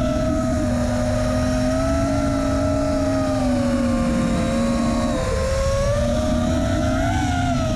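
FPV quadcopter's brushless motors and propellers whining, the pitch sagging about five seconds in and climbing again near the end as the throttle changes, over a low wind rumble on the onboard camera's microphone.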